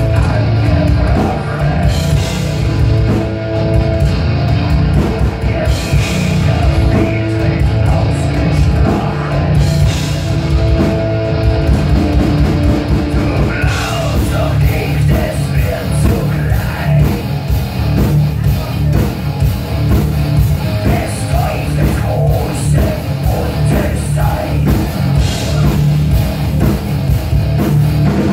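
Live rock band playing loud: electric guitar, drums and a singer.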